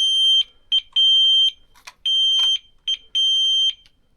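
An electronic alarm beeping loudly: a single high steady tone in beeps of about half a second, roughly one a second, with short blips and a couple of faint clicks between them.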